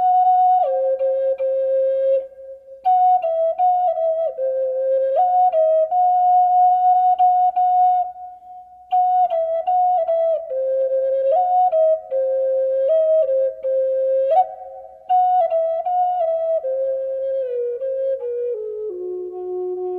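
Background music: a solo flute playing a slow melody in phrases with short breaks between them, stepping down to a low held note near the end.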